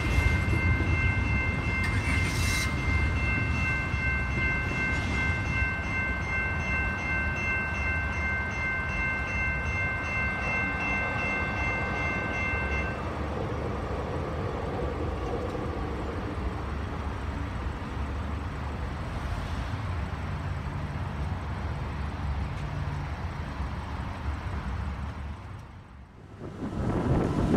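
Freight train rolling through a level crossing, with a low rumble and the crossing bell ringing steadily. About halfway through the bell stops as the gates clear, and a low rumble goes on. Near the end the sound fades out and wind noise on the microphone comes up.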